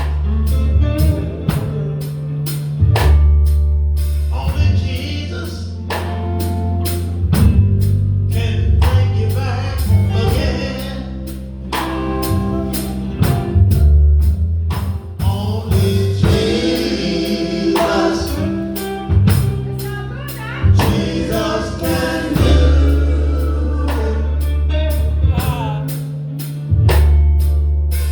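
Live gospel music: a group singing over drums, bass and keyboard, with a steady drum beat.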